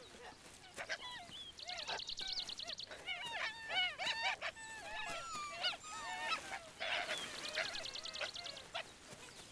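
Ethiopian wolves squealing and yelping in a pack greeting: many short high squeaks that rise and fall, with a rapid high trill twice, about two seconds in and near the end.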